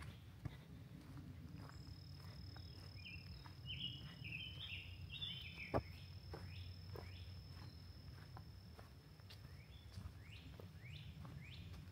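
Footsteps on the leaf-littered forest floor, with one sharp snap a little under six seconds in, while birds chirp. Chirping notes cluster in the middle, and a run of quick rising chirps comes near the end, over a thin steady high-pitched tone.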